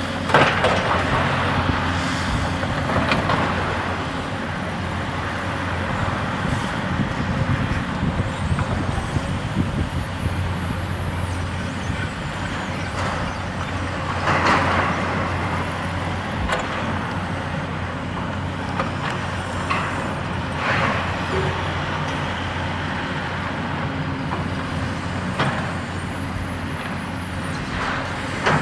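A hydraulic excavator's diesel engine runs steadily while its demolition grab tears at steel sheeting and blockwork, giving intermittent crunches and clatters of falling debris. The sharpest crashes come just after the start and about halfway through.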